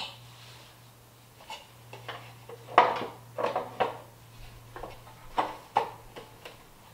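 Metal parts clinking and knocking in a string of separate sharp taps as a chrome turn-signal housing is worked into place in a sheet-metal headlight and grille panel. A faint low hum runs underneath.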